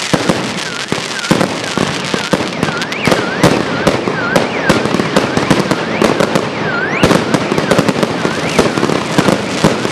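Fireworks display: a dense, unbroken barrage of sharp bangs and crackling from aerial shells bursting overhead. Under it, a pitched tone dips and rises about twice a second.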